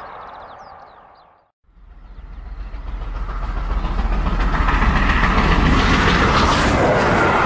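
Model LNER A4 steam locomotive and its coaches running fast on a model railway track, a low rumble with rapid wheel clicking over the rail joints. It starts after a brief silence about a second and a half in and grows louder as the train approaches, staying loud for the last few seconds.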